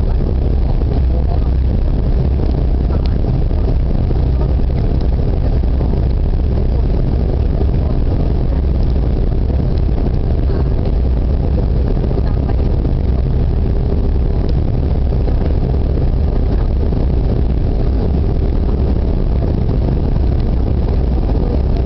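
Steady low rumble of engine and airflow noise heard inside the cabin of a Canadair CRJ-200 regional jet on final approach, through touchdown and the rollout on the runway. A steady, higher hum comes in right at the end.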